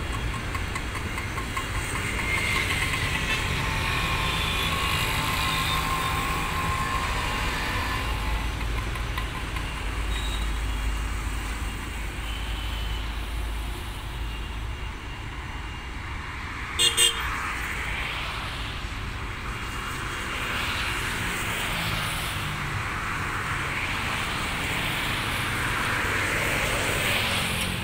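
Distant IndiGo ATR 72 turboprop running at takeoff power as it rolls and climbs away, over a steady rumble of road traffic. A horn gives two quick toots about halfway through.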